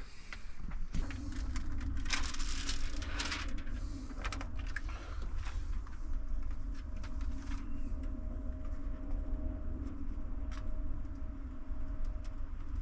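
Small mosaic tile sheets being handled and pressed onto a wall: light clicks, clinks and scrapes, thickest in the first few seconds, over a steady low hum.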